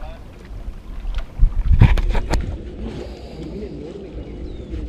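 Wind buffeting an open microphone as a low rumble, with a few sharp knocks about a second and a half to two and a half seconds in; after that it settles to a quieter, fainter rumble.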